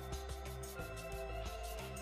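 Instrumental background music with held notes over a steady beat.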